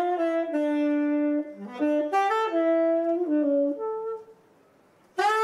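Unaccompanied saxophone playing a slow melodic phrase of held and changing notes. It breaks off about four seconds in, and after a pause of about a second a new held note begins near the end.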